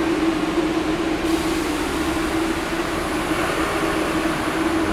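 MBTA Red Line subway train running along the platform: a steady hum over a constant rumbling noise.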